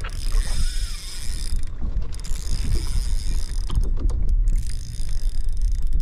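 Spinning reel being cranked to bring in a hooked redfish: a steady gear whir in three spells, broken by short pauses about two and four seconds in, with wind rumbling on the microphone.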